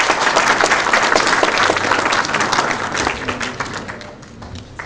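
Audience applauding, a dense patter of many hands that thins out and dies away about three and a half seconds in.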